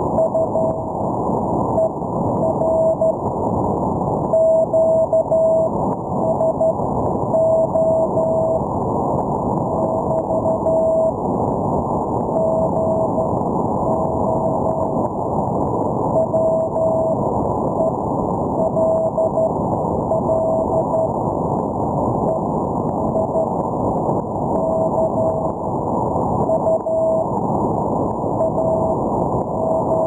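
Morse code (CW) signal heard through an HF ham radio receiver: one steady beep tone keyed on and off in dots and dashes, over a constant hiss of band noise. The station is sending its goodbye, closing the contact.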